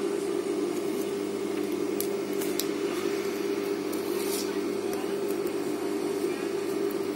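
Industrial sewing machine's motor humming steadily at idle while the needle is not running, with a few faint clicks and rustles as the zipper and fabric are handled.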